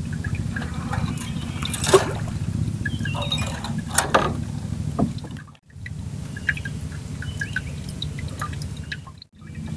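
Water lapping and trickling against a small boat's hull, over a steady low rumble, with a couple of sharp knocks about two and four seconds in as fishing line and bait are handled in the boat.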